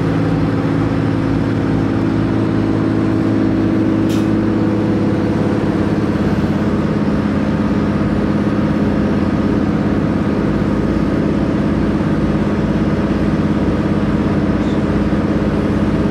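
Inside the cabin of a JR Hokkaido H100 (DECMO) diesel-electric railcar under way: a steady engine drone with wheel and rail rolling noise as the train runs along the line.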